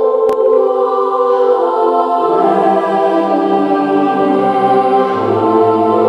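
Choral-style music with long held chords played back through a Bose Acoustimass 5 speaker system and picked up in the room; a deep bass note comes in about five seconds in. A single brief click sounds just after the start.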